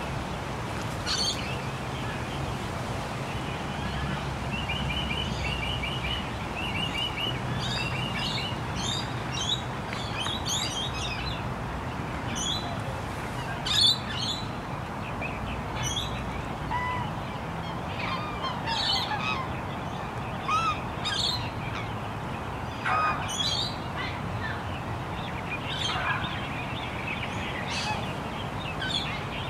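Lakeside bird chorus: black swans and other waterbirds calling, with smaller birds chirping in quick runs of notes, over a steady low rumble of distant traffic. A louder sharp sound stands out about fourteen seconds in.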